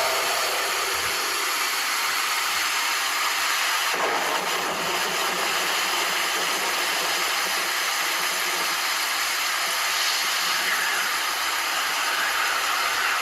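Poco X3 phone's stereo loudspeakers playing a surround-sound test clip: a steady, loud rushing hiss that gets deeper about four seconds in, with faint gliding tones near the end.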